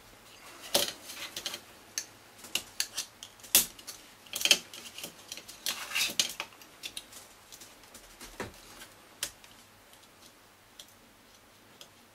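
A knife cutting the mushroom-shaped heads off the plastic mounting pegs inside a Bose SoundDock: irregular clicks, snaps and short scrapes of the blade on plastic. It thins out to a few clicks after about seven seconds.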